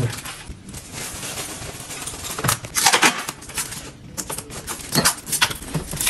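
Tools and small metal fittings clicking and clattering irregularly, with a few sharper knocks about halfway through and again near the end.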